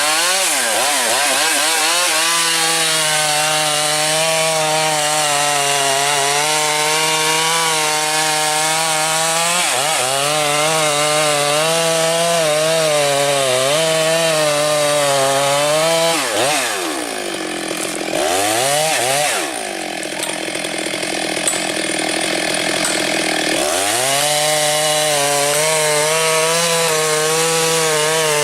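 Chainsaw engine running at high revs while cutting wood, its pitch wavering under load. About two-thirds of the way through it drops to a lower, quieter note for several seconds, with brief blips, then revs back up.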